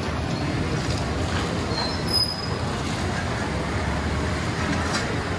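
A steady low roar, with a couple of faint, brief metallic squeaks about two seconds in as a large metal ladle scrapes the rim of a big aluminium cooking pot while scooping boiled chickpeas.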